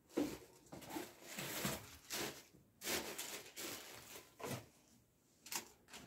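Tissue paper and a cardboard shoe box being handled: a run of short rustles and crinkles.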